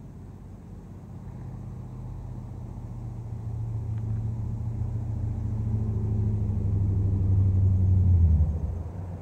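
A motor vehicle passing close by: a low engine hum that grows steadily louder, then drops in pitch and fades quickly as it goes past near the end.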